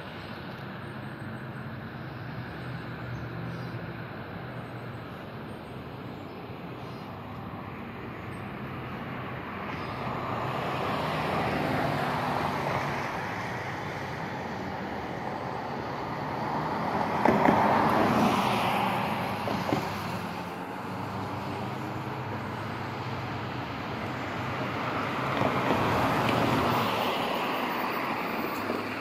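Road traffic passing: three vehicles go by one after another, each swelling and fading over a few seconds, the second the loudest, over a steady low hum.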